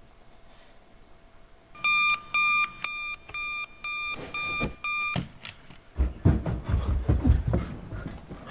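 Digital clock radio alarm beeping, a quick run of about eight electronic beeps that stops a few seconds in. Then a fast, irregular flurry of heavy thumps, like hurried footsteps.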